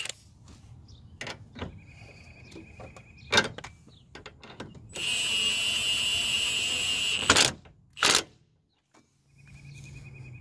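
Milwaukee Fuel cordless impact wrench tightening the sway bar link nut: a quiet whine early on, then one loud burst of running about two and a half seconds long a little past halfway, followed by two sharp clicks.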